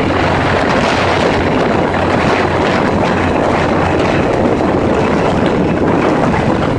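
Steady wind buffeting the microphone over a constant low engine hum, as from riding in a moving motorboat.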